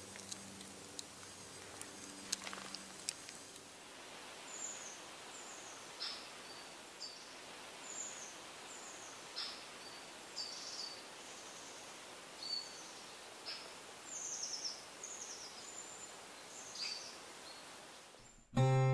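Quiet woodland ambience with a small bird giving short, high, descending chirps about once a second from about four seconds in. Guitar music starts loudly just before the end.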